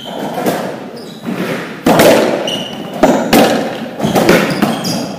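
Racquetball rally in an enclosed court: the ball cracking off rackets and walls about a dozen times, each hit echoing, with a couple of brief sneaker squeaks on the court floor.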